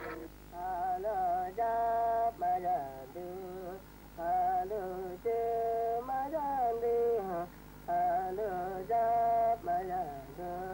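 An Aguaruna man singing a solo chant without accompaniment, in short melodic phrases broken by brief pauses, the pitch wavering and sliding within each phrase.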